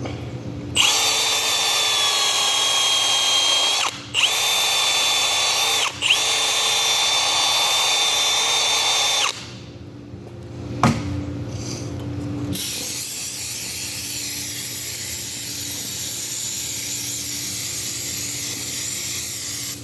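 Power drill with a wire wheel spinning up in three runs of a few seconds each, its motor whine rising at each start and dying away at each stop, as a valve part is scrubbed clean. About halfway through, a long steady hiss follows.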